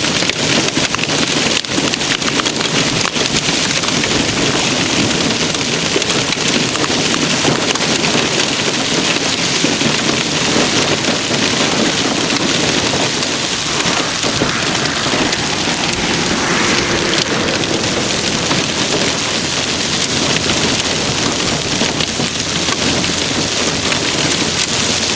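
Hail and heavy rain pelting down: a loud, steady, dense hiss packed with countless small hailstone impacts.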